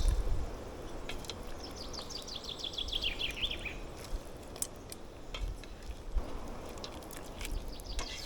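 A songbird sings one quick descending trill of about fifteen notes, falling in pitch and lasting about two seconds, from roughly one and a half seconds in. Scattered sharp clicks sound through the rest.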